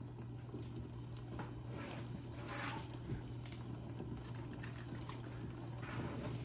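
Faint bubbling of a pot of sinigang broth heating on an electric glass cooktop, over a steady low hum, with a brief rustling noise about two and a half seconds in.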